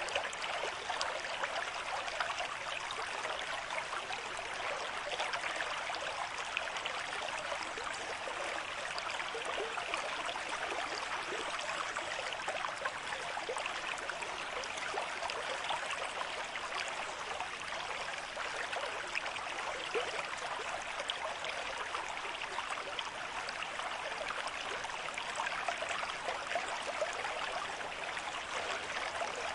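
A shallow river stream flowing at a moderate rate: a steady, even rushing and babbling of water over stones, with fine splashes throughout.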